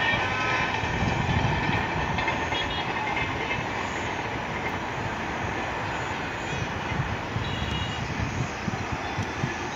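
Indian Railways passenger train running along the line at a distance: a steady rumble of wheels on track.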